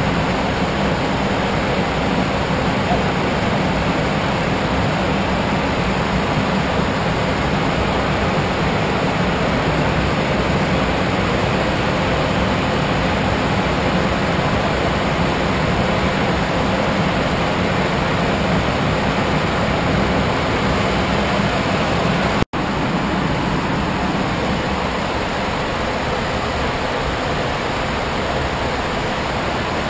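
Steady rushing cockpit noise of a private jet in flight: airflow and engine noise with a faint low hum underneath. It cuts out for an instant about three-quarters of the way through and comes back slightly quieter.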